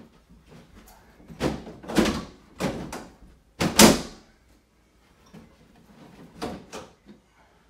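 Knocks and bangs from a metal-framed reptile rack loaded with plastic tubs being handled and shifted: about four sharp hits in the first few seconds, the loudest just before the four-second mark, then a couple of softer ones later.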